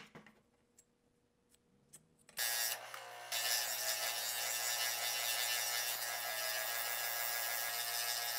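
A few faint clicks, then about two and a half seconds in an electric scroll saw starts running steadily, its blade cutting a piece of hardwood with a dense buzz over a low hum.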